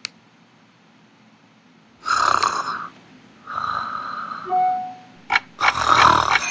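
Recorded snoring played back from an audio file: two long snores about a second and a half apart. Near the end comes a click, then an alarm starts ringing.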